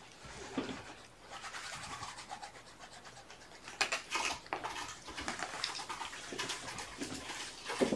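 Kittens scratching and scrabbling with their claws on fabric and carpet: irregular scratchy rustling with bursts of fine clicks, loudest about four seconds in and again near the end.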